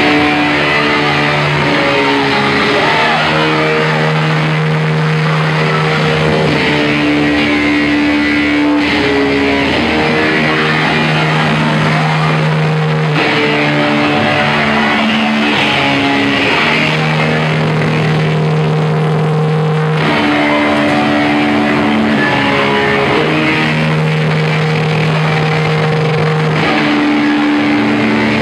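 A rock band playing loudly: electric guitar and bass holding long sustained chords that change every couple of seconds, over a steady wash of cymbals and noise.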